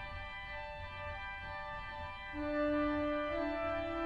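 Harrison & Harrison cathedral pipe organ playing soft held chords. About halfway through, louder lower notes enter and step upward.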